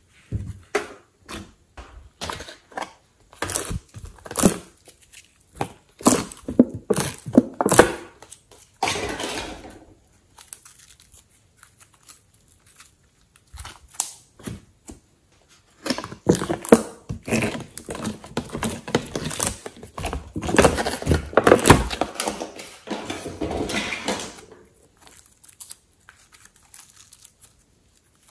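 Soft fluffy slime being squeezed, stretched and pulled apart by hand, giving off rapid sticky crackles and small pops. The crackling comes in two long spells with a sparse, quieter stretch in the middle.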